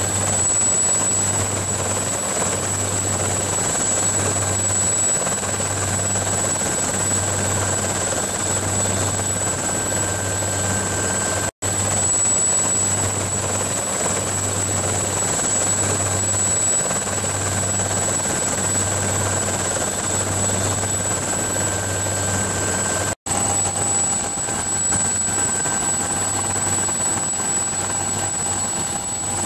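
Helicopter running steadily, a loud continuous drone with a low throb that pulses about once a second. The sound cuts out for an instant twice.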